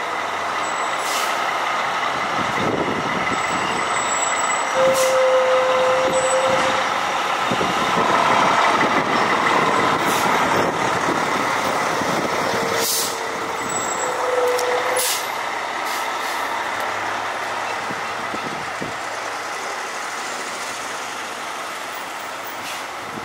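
Fire engine's diesel engine pulling away and driving past close by, with short hisses from its air brakes.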